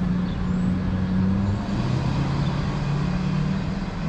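A motor vehicle's engine running with a steady low hum over road traffic noise; its pitch drops a little about halfway through.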